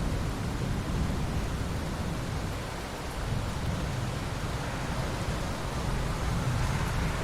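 Steady rain with a low rumble of thunder underneath.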